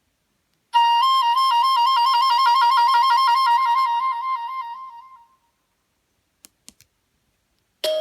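A Nokia Asha 302 ringtone: a rapid electronic trill that warbles between two close notes, starting about a second in and fading out after about four seconds. A few faint clicks follow, and a different ringtone starts at the very end.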